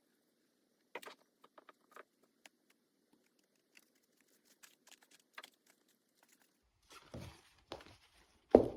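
Scattered small clicks and light handling noises as small screws are driven back into a miniature RC skydiver figure through its fabric jumpsuit, with louder rustling near the end.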